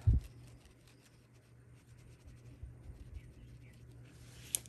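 Oil-based paint marker tip dabbed and rubbed on a folded paper towel to blot off excess ink: faint scratchy dabbing and paper rustle. A low thump right at the start is the loudest sound, and there is a sharp click near the end.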